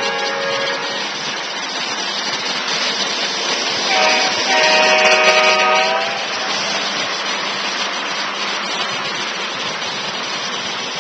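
Lionel O-gauge model freight train rolling by, its wheels rumbling on the three-rail track. A diesel horn from a locomotive's electronic sound system is heard twice: a blast that ends about a second in, and a louder, longer one from about four to six seconds in.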